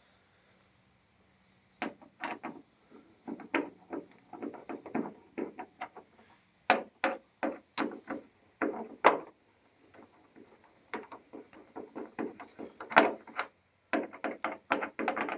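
Screws being tightened by hand into the kayak's plastic motor mount: a run of irregular clicks and knocks in spurts with short pauses, starting about two seconds in.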